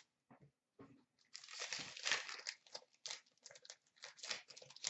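A pack of 2016-17 Fleer Showcase hockey cards being torn open and its wrapper crinkled: a long rustling tear, then a run of short crackles.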